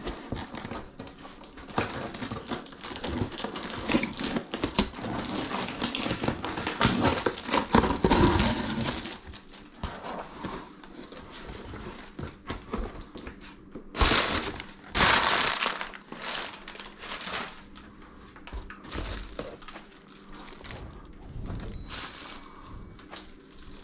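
Cardboard box flaps being pulled open and crumpled brown packing paper rustled and dug through, with loud bursts of crinkling about a third of the way in and again past halfway. Near the end a plastic-wrapped item is handled.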